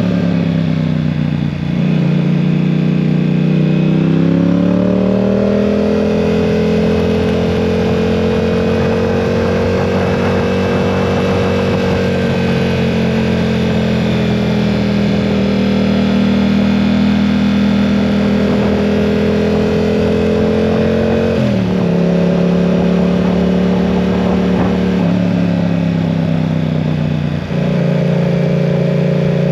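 Yamaha R7's parallel-twin engine pulling steadily under way. Its pitch climbs about four seconds in and holds, then falls sharply twice, near the end and again shortly after.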